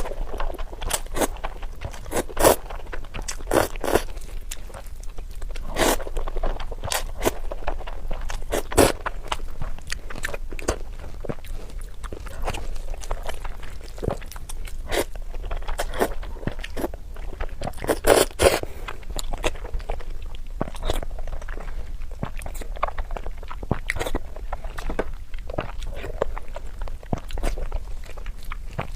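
Close-miked eating of spicy instant noodles: chewing and mouth sounds made up of many short, sharp wet clicks, with a few louder bites.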